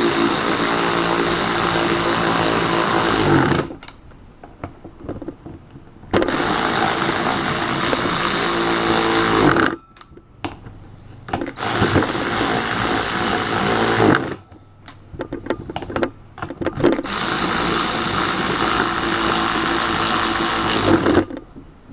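Power drill driving a 1/2-inch deep socket, spinning nuts down onto the bolts that clamp a split scooter rim together. It runs in four separate bursts of about three to four seconds each, one per nut, with light clicks between them.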